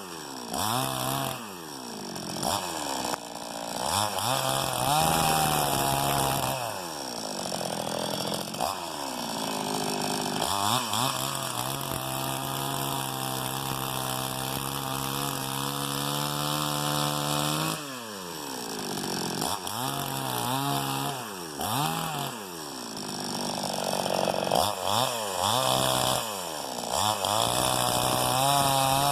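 Two-stroke chainsaw ripping a dry log into boards. The engine speed rises and falls again and again as it works in and out of the cut, with a long steady stretch at high speed in the middle.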